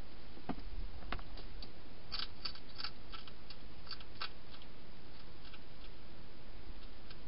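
A wild hedgehog crunching dry food inside a plastic feeding box: scattered sharp crunches, coming thick and fast for a couple of seconds in the middle, over a steady hiss.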